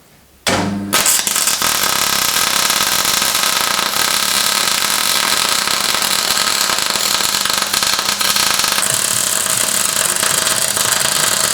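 A power tool starts abruptly about half a second in and runs loud and steady, with a slight change in its pitch about nine seconds in.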